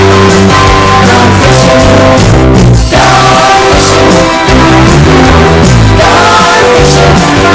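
Pop song with guitar, boosted so loud that it sits at full scale throughout, blown out and clipped for comic effect.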